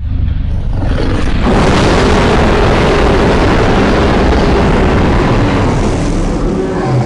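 Designed creature-roar sound effect: a loud, deep, rumbling roar like a drawn-out explosion, starting abruptly and growing fuller and brighter after about a second and a half.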